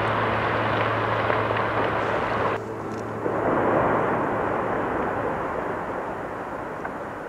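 Volcanic eruption rumbling as ash and glowing debris blast from the vent: a dense rushing noise that cuts off abruptly about two and a half seconds in, swells again, then slowly fades.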